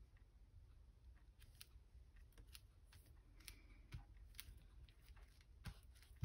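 Near silence with a few faint, scattered clicks and rustles of paper and craft materials being handled.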